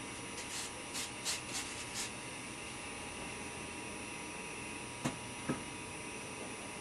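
Steady electrical hum, with five short swishes in the first two seconds and two sharp clicks about five seconds in, from hands working with tools and materials on model railroad foam scenery.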